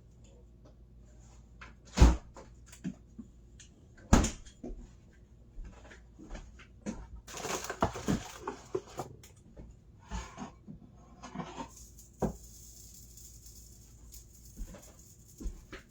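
Handling noises in a kitchen: two sharp knocks about two seconds apart, then a run of smaller clatter and rustling, another knock, and a steady hiss in the last few seconds.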